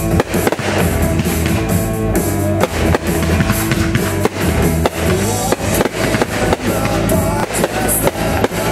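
Music with drums playing loudly, mixed with repeated firework bangs and crackle at irregular intervals throughout.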